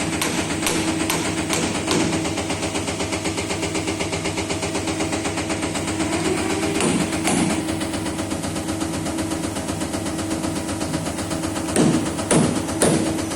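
Injector test bench running a Caterpillar 3412E injector: rapid, even clicking of the injector firing over the steady hum of the bench. A few louder knocks come near the start, in the middle and near the end.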